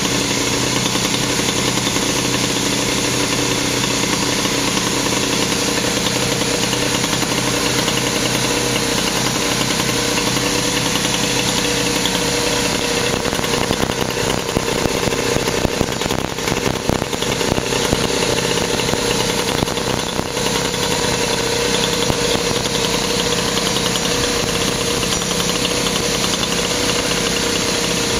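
Raleigh Wisp moped's tuned Motobecane AV7 two-stroke engine, fitted with a 46 mm cylinder and a Dellorto 15/15 carburettor, running steadily on its stand with a constant buzz. For several seconds around the middle it runs unevenly, then settles back to a steady note.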